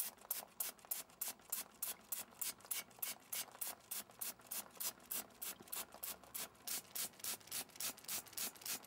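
A brush scrubbing WD-40-soaked grime off a motorcycle swingarm in quick, even back-and-forth strokes, about four a second.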